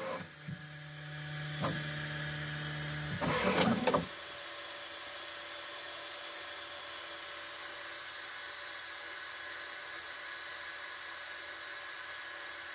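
Bambu Lab X1 Carbon 3D printer's motors humming with a few clicks during its first-layer inspection. The hum stops suddenly about four seconds in, leaving a steady whir: the printer has paused on a detected first-layer fault.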